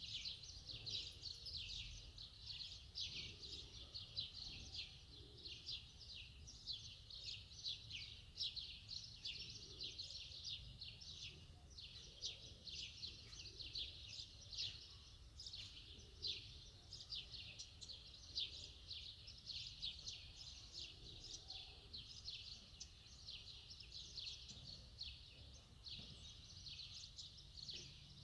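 Many small birds chirping at once: a dense, high-pitched chatter of quick chirps that goes on without a break.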